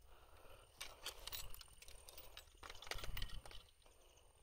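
Footsteps and rustling through tall grass and brush, with scattered light clicks.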